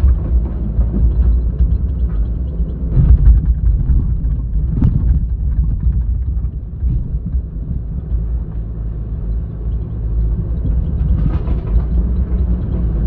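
Heavy diesel engine of an excavator running steadily, a deep rumble, with a few sharp knocks about three and five seconds in.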